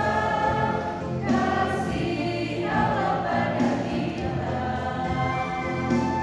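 Mixed church choir of men's and women's voices singing a song of praise together, holding sustained notes that change about every second.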